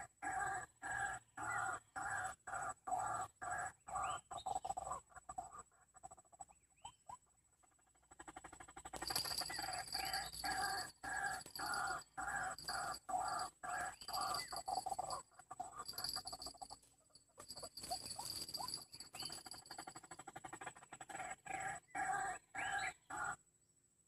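White-breasted waterhen (burung wak-wak) calls repeated about twice a second in long runs with short breaks, played back as a lure to draw the birds to a snare line. The calls cut off suddenly near the end.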